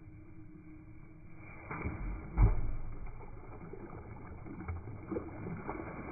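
Fishing magnet splashing into a river: one dull, muffled thud about two and a half seconds in, with a few lighter knocks and rustling after.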